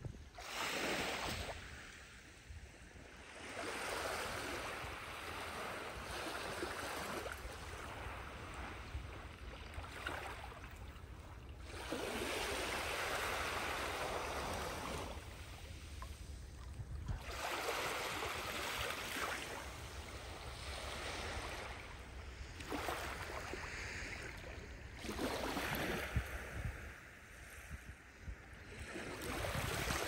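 Small waves of a calm sea lapping and washing onto a sandy shore: a soft hiss that swells and fades every few seconds, over a low steady rumble.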